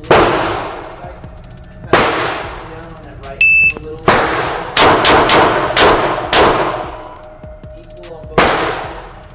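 Gunshots echoing in an indoor range. About three and a half seconds in, a short high electronic beep is followed by a quick string of five or six shots from a Ruger LCR revolver within about two seconds. Single shots also sound near the start, about two seconds in, and near the end.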